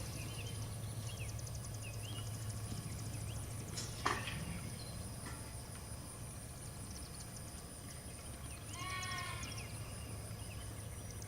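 A sheep bleats once, a wavering call near the end, over the low background of the sheep pen. There is a single sharp knock about four seconds in.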